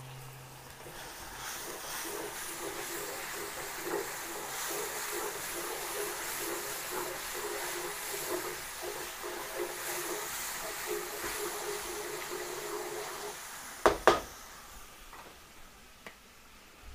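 Tomato sauce sizzling in a hot pan of sautéed garlic, onion and chorizo: a steady hiss with crackles that dies down about thirteen seconds in. Two sharp knocks follow close together.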